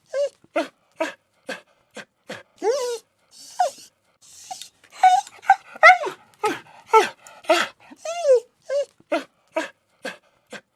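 A puppy whimpering and crying: a quick run of short, high, pitched whines, many gliding down in pitch, several a second, with breathy snuffling sounds between them.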